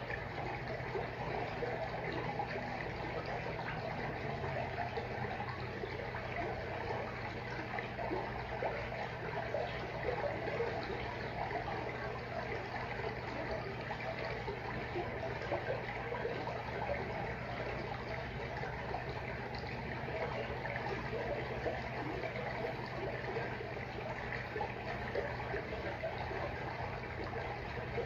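Aquarium water trickling and bubbling steadily, with a steady low hum underneath.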